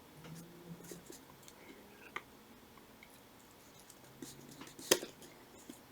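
Faint small clicks of a tool working a circlip loose on the shaft of a Shimano 105 road-bike shifter, with one sharper click about five seconds in.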